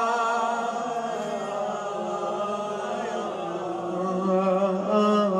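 A man's voice chanting a Shia elegy for Fatima al-Zahra in Arabic, drawing out long, wavering held notes without clear words.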